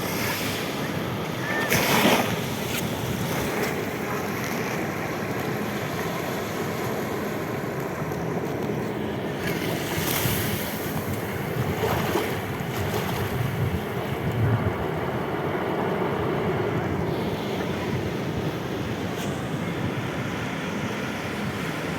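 Steady rush of waves with wind on the microphone, with a few louder surges.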